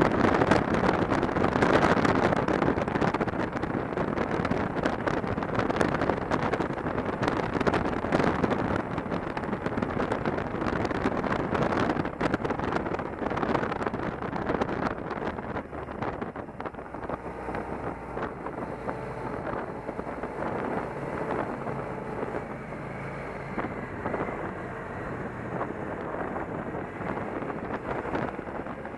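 Wind buffeting a helmet-mounted camera's microphone on a moving motorcycle, with the bike's engine running underneath. The wind is loudest at the start and eases gradually through the second half, letting a faint steady engine hum come through.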